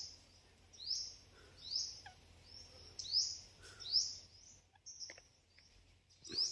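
A bird calling over and over, a short high note that sweeps up and then holds, about once a second.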